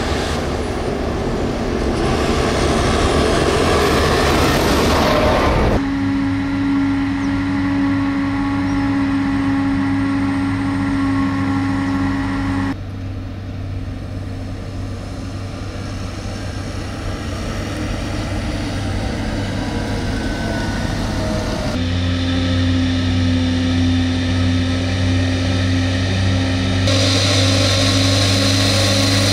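Farm machinery at work during a silage harvest. A tractor drives up first, and its engine noise rises as it nears. Then comes the steady, even hum of a John Deere self-propelled forage harvester chopping whole-crop silage, a quieter stretch of a tractor with a silage trailer running across stubble, and the harvester's hum again near the end.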